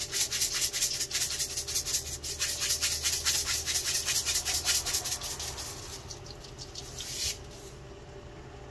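Sea salt shaken from a round canister into a pot: a rapid, gritty rattle of several shakes a second that stops about seven seconds in.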